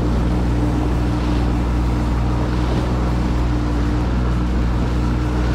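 Inflatable boat's engine running steadily, with water washing along the hull and wind on the microphone.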